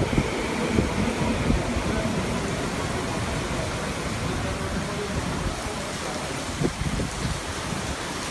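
Heavy torrential rain as a steady rushing noise, mixed with the low rumble of a Tobu Tojo Line train running.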